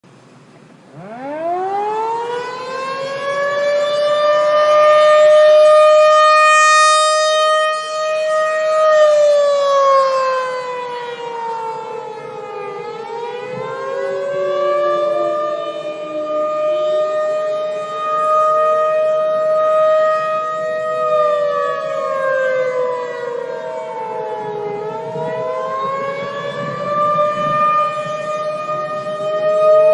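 Air-raid warning siren winding up about a second in, holding a steady wail, then falling and rising again in slow cycles, with a second tone that rises and falls out of step with the first.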